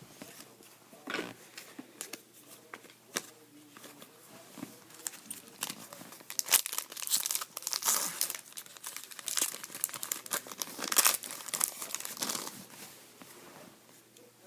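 A hockey card pack's wrapper being torn open and crinkled by hand, in irregular crackling bursts that are busiest in the latter half.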